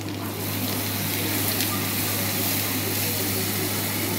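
Masala paste sizzling in hot oil in a nonstick pan as it is stirred with a spatula, a steady hiss over a constant low hum.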